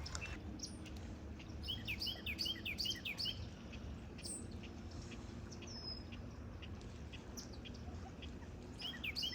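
A small bird chirping: runs of short, quick downward-sweeping notes, one run about a second and a half in and another near the end, over a steady low background rumble.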